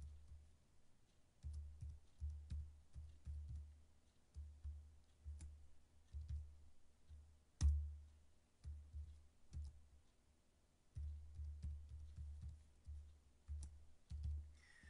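Typing on a computer keyboard: irregular runs of keystrokes, each with a dull low thud, with one louder keystroke about eight seconds in and a short pause around ten seconds.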